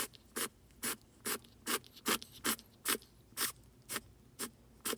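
Richardson's ground squirrel sneezing over and over in a fast, even run of short, sharp puffs, a little over two a second.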